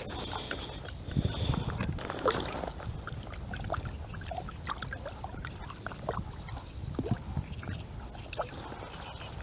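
Light water splashing with scattered small knocks and rustles of handling as a hooked bass is landed and handled at the water's edge.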